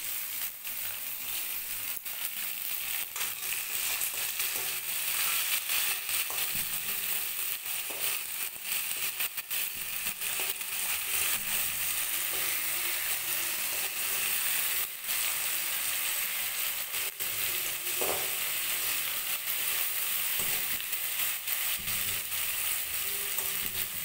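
Chopped onions and tomatoes sizzling in hot oil in a metal wok (kadai), with a spatula stirring and scraping against the pan in short, irregular strokes.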